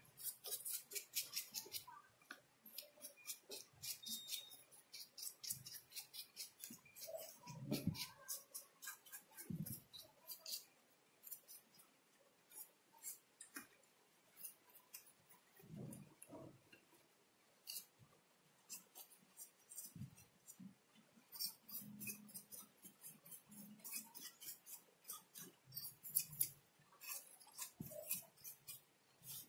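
Faint, rapid scratchy strokes of dust and dirt being scraped and brushed off the deflection yoke and chassis of a CRT television, in irregular runs with short pauses.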